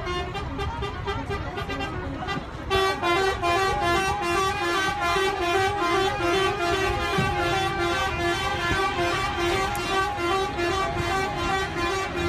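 A horn sounds a rapid, rhythmic run of short notes that step up and down in pitch, starting about three seconds in. Under it is crowd noise and a steady beat.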